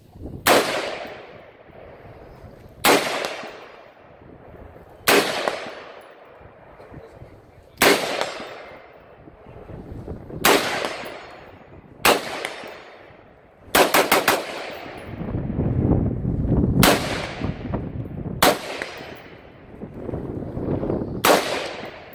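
Shots from an AR-15-style semi-automatic rifle: single shots every two to three seconds, each trailing off in a ringing echo, with a quick string of about four shots about halfway through.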